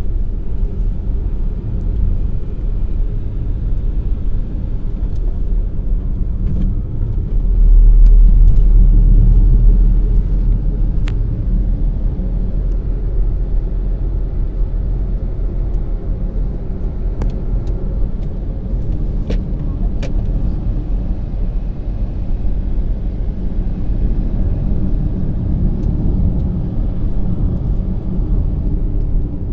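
Steady low rumble of a car driving along the road, heard from inside the cabin, with a few faint clicks. The rumble swells louder for about two seconds roughly a quarter of the way through.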